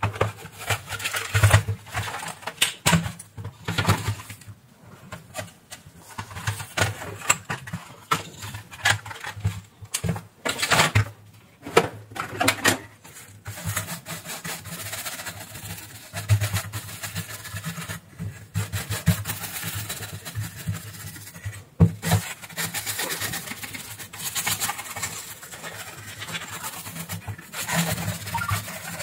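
Bristle paintbrush scrubbing dust off a router's circuit board, in quick irregular strokes over a low hum. In the first half, clicks and knocks of the router's plastic case and board being taken apart and handled.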